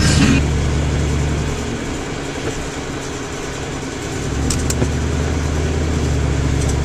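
Steady low drone of engine and tyre noise heard from inside a vehicle moving at highway speed. The drone eases a little for a couple of seconds mid-way and then returns, with two faint ticks about four and a half seconds in.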